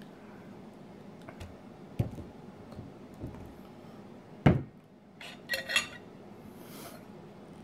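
Tableware sounds: a light tap, then a loud dull thump about halfway through as the plastic syrup bottle is set down on the table, followed a second later by a fork clinking against a ceramic plate.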